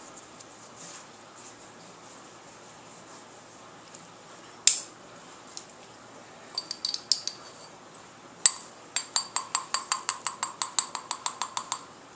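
Hard, ringing clinks of a paintbrush tapped against a container's rim: two single sharp knocks, a short flurry, then a quick run of about seven taps a second for some three seconds, which spatters rubbing alcohol onto wet acrylic paint.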